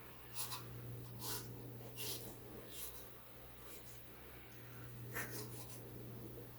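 Sharp knife cutting fat and skin off a raw turkey: about five short scratchy strokes, over a steady low hum.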